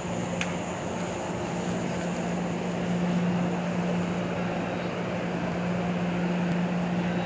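Hyundai Rotem Série 2000 electric multiple unit at a metro platform, giving a steady drone with a low steady hum through it that grows stronger about halfway through.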